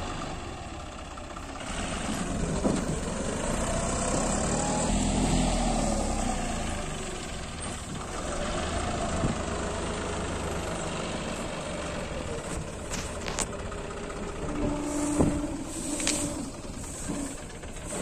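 Diesel engine of a John Deere 5530 tractor carrying a Dasmesh 912 combine harvester, running steadily, its pitch rising and falling once a few seconds in.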